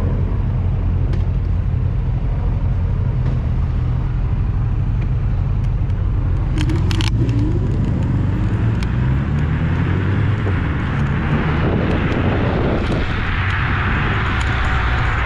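Ride noise on a Dualtron Victor electric scooter pulling away from a junction and picking up speed, with street traffic around it: a steady low rumble at first, a brief clatter about seven seconds in, a rising whine just after, and wind rush on the microphone growing louder toward the end.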